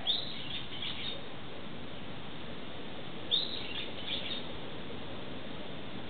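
Brown-eared bulbul calling: two phrases of high notes, each about a second long and about three seconds apart, over a steady background hiss. The uploader suspects the bird is mimicking another call.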